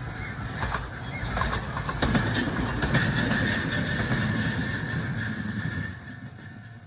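Electric train running past: a rumble with irregular clicks swells about two seconds in, with a steady high whine over it, then fades away near the end.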